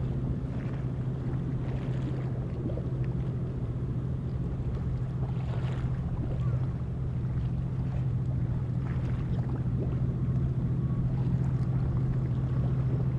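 High-speed catamaran ferry under way: a steady low engine drone with rushing water and wind noise that swells briefly every few seconds.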